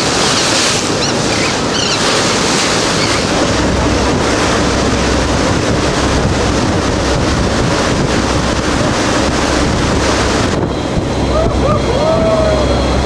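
Wind buffeting the microphone over the rush and splash of sea water around a boat, with a low engine hum coming in a few seconds in.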